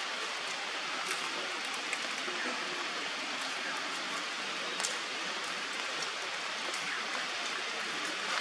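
Steady, even rushing noise, with a few faint clicks and one sharper click about five seconds in.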